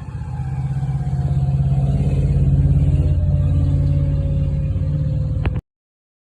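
Fire engine's engine running loud as the truck pulls past, building over the first few seconds, while its Federal Q mechanical siren winds down in a slow falling whine. The sound cuts off abruptly about five and a half seconds in.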